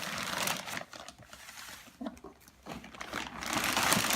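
Cardboard and foam packing rustling and scraping as a computer is worked out of its box, with a short squeak about two seconds in.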